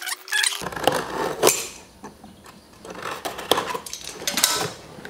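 Hands working open a long cardboard shipping box: scraping and rustling with a few sharp clicks and knocks, quieter for a moment in the middle.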